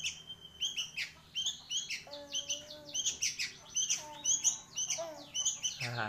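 Young sooty-headed bulbul (kutilang), a fledgling about a month old, giving a run of short, high chirps and squeaky notes over and over: the unformed calls of a young bird just learning to sing.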